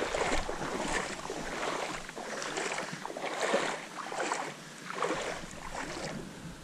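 Water splashing and sloshing around a small rowing boat, in uneven surges about once a second.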